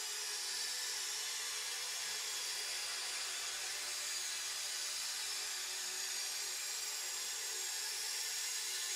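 Electronic synthesizer music: a steady, high, hissing texture of many held tones, with no beat and little bass.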